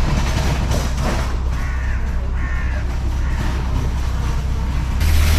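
A crow cawing twice over a steady low outdoor rumble, with a low engine-like hum setting in near the end.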